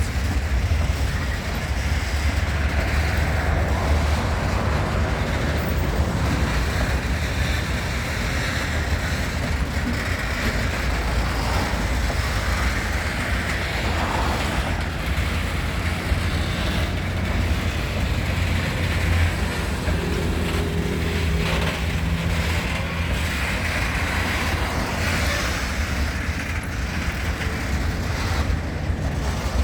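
Diesel locomotive of HŽ series 2041 running steadily, with a strong low engine hum, as it moves a string of freight wagons slowly along the track. A faint low tone joins in briefly about two-thirds through.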